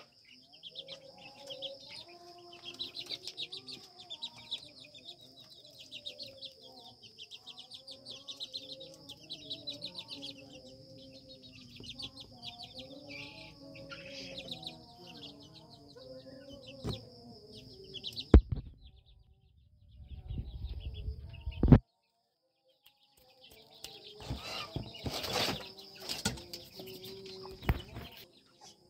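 Bangkok gamecocks clucking softly in their coop over a steady high-pitched buzz. About two-thirds of the way through there are a couple of sharp knocks, then a burst of rustling and wing flapping.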